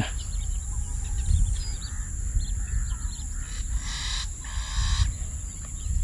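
Birds calling faintly across open water, with scattered short chirps and a somewhat stronger burst of calls about four seconds in, over a steady low rumble.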